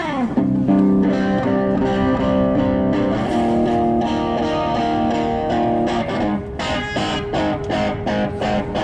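Guitar playing: a note slides down in pitch into held, ringing chords, which change about three seconds in, then turn into fast, rhythmic strumming from about six seconds in.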